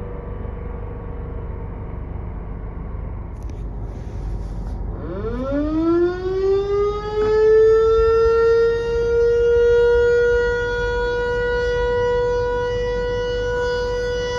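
An ASC (American Signal) T-112 electromechanical warning siren starting up about five seconds in. Its tone climbs quickly from a low pitch to full pitch over about three seconds and then holds steady, one tone with a stack of overtones, swelling and dipping in loudness. Before it, the faint tail of another siren sags slightly in pitch over a low rumble.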